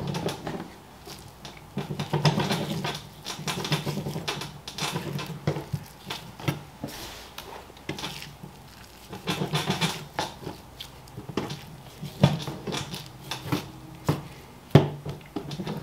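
Curved butcher's knife trimming fat from a boneless beef chuck roast on a plastic cutting board: irregular slicing and scraping strokes through the fat, with a few sharp knocks of the blade and meat on the board.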